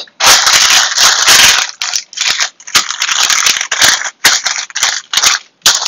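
Parchment paper crinkling and rustling as it is handled and pressed into a metal baking pan to line it: a dense stretch of crackling near the start, then shorter, broken crinkles.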